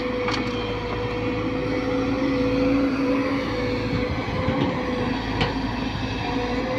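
Diesel engines of a tracked excavator and a farm tractor running steadily while soil is loaded into the trolley, a constant drone with one steady pitch. A couple of faint brief clicks cut through it, about a third of a second in and again past the five-second mark.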